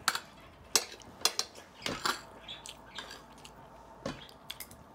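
Eating at a dinner plate: about ten short, sharp clicks and clinks at irregular intervals as food is picked up from the plate and eaten.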